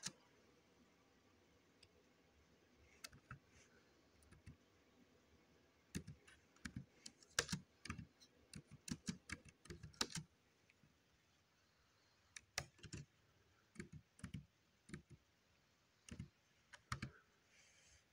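Laptop keyboard keys clicking as someone types slowly, in short uneven bursts with pauses between them.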